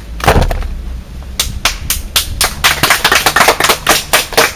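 Sharp hand claps, few at first and then coming faster and faster, several a second by the end.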